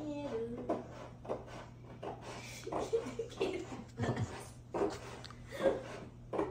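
Scissors cutting across a large sheet of heavy Arches watercolour paper, with irregular crackling and rustling of the stiff sheet as it is held and bent.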